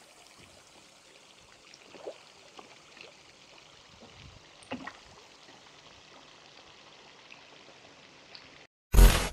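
Faint water lapping with a few small splashes as a crowd of fish, catfish among them, jostles at the surface of a pond. Near the end a sudden, very loud burst of noise lasts about a second.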